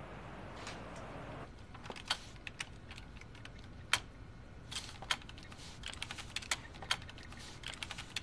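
Computer keyboard being typed on: irregular keystroke clicks, a few sharper and louder than the rest. They start about two seconds in, after a short stretch of steady hiss.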